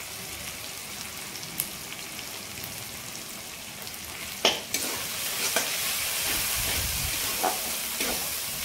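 Onion and spice masala sizzling in oil in an aluminium kadai while a flat metal dosa turner stirs it, scraping against the pan. A sharp knock of the turner on the pan comes about halfway through, after which the sizzling grows louder.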